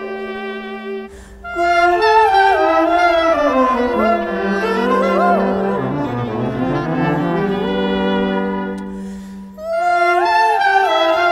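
Live contemporary chamber music: held and gliding notes from bowed strings and winds, including clarinet, playing together. The music drops away briefly about a second in and again near the end, each time swelling back.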